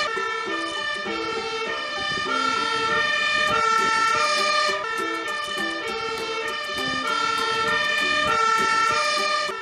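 Fire engine siren sounding as the truck drives by, its notes stepping back and forth between high and low.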